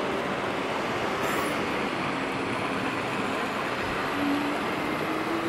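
Radio-controlled scale truck's simulated diesel engine sound, its note stepping up and down in pitch with the throttle, over the steady din of a busy exhibition hall.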